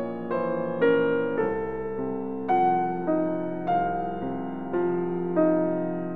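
Background music: a slow piano melody, a new note struck about every half second and each one fading away.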